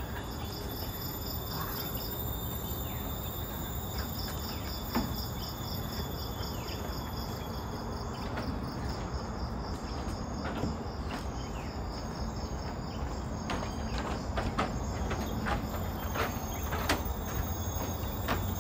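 Forest insects calling: a rapid, evenly pulsing high chirp that stops about two seconds in and starts again two seconds later, over a steady high-pitched insect hum. Scattered sharp taps and clicks in the second half.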